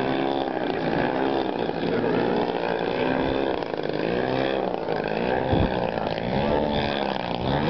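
Engine and propeller of a radio-controlled aerobatic model plane running hard through manoeuvres, its pitch rising and falling over and over.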